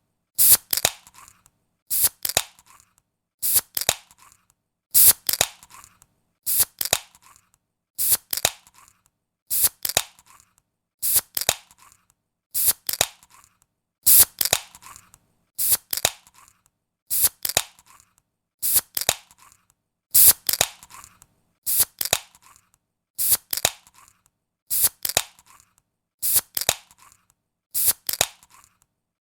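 Aluminium soda can opened by its ring-pull tab, over and over about every one and a half seconds: each time two sharp clicks close together, then a short fizzing hiss of escaping gas that dies away.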